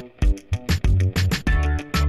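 Instrumental background music with a steady drum beat over a bass line.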